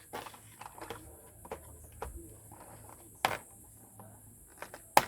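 Doll packaging being cut and pulled apart: light rustling and scattered clicks of plastic and cardboard, with two sharper snaps about three and five seconds in.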